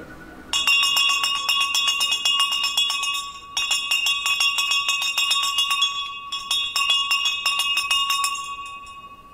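A single handbell shaken rapidly in three bursts of two to three seconds each, with brief pauses between them. Its ringing fades away near the end.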